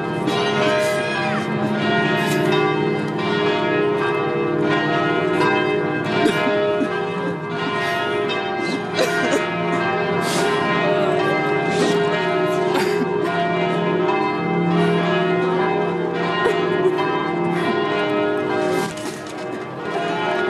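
Church bells ringing continuously, many tones overlapping in a steady peal.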